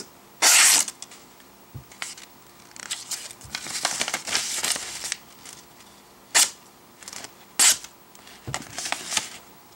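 Buck 397 Omni Hunter folding knife's 420HC hollow-ground blade slicing through a glossy paper card in a run of separate short cuts, with the paper rustling between them: a paper-cutting sharpness test.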